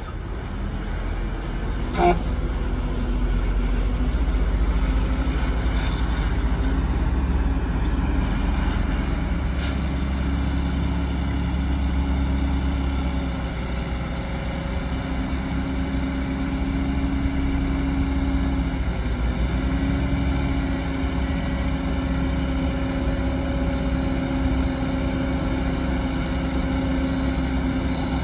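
Heavy diesel dump truck engine running steadily under load while its hydraulic hoist raises the loaded tipper bed, with a steady hum that holds through the second half. A single sharp knock about two seconds in.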